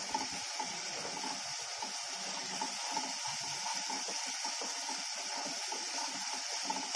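Tomato-and-spice masala frying in oil in a kadhai, stirred with a wooden spatula: a steady sizzling hiss with irregular scraping and rustling of the spatula through the thick paste. The masala is at the stage where the oil has separated and it is fully fried.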